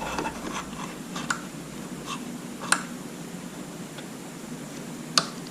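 A few faint, sharp clicks and taps, seconds apart, of a plastic module and its wiring being handled and pushed down into place in the motorcycle.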